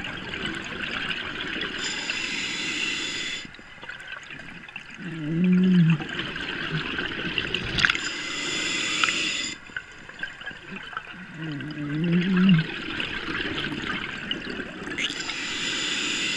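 Scuba diver breathing underwater through a regulator, a breath about every six seconds. Each breath is a hissing inhale through the regulator, then a louder, low gurgling rush of exhaled bubbles.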